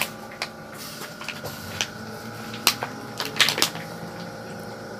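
A thin shopping bag and plastic packaging being handled: rustling with a few sharp crinkles, the clearest ones past the middle. A steady faint machine hum runs underneath.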